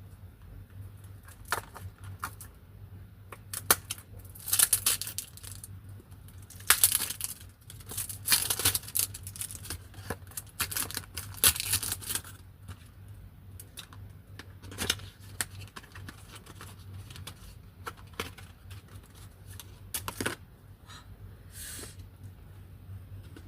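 Packaging being torn open and handled: irregular bursts of tearing and rustling, loudest in the first half, with scattered clicks and knocks.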